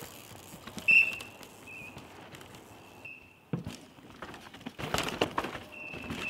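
Downhill mountain bikes rattling and knocking over roots and rocks, with a cluster of clatter in the second half. Short, steady high-pitched tones sound several times over it, the loudest about a second in.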